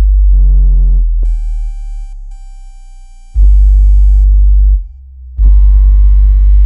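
Synthesized water-ejection tones: a very deep bass drone with medium and high pitched tones layered over it, meant to vibrate earbud speakers so they push water out. A steady high tone holds through the middle, the bass drops out briefly near the five-second mark, then returns loudly with a dense cluster of tones.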